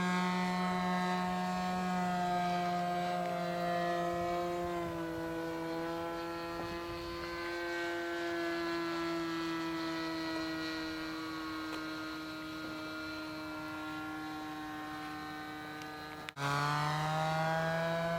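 Two-stroke glow engine of an O.S. 55 powered RC model plane running steadily, a buzzing note that drifts slowly down in pitch. It breaks off suddenly about sixteen seconds in and comes back with the note rising.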